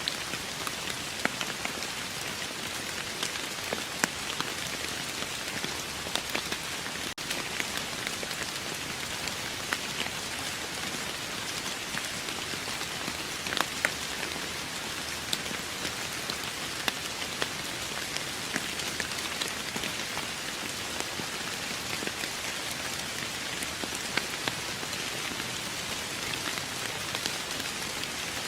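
Steady rain falling on a surface, an even hiss with many distinct drops pattering close by.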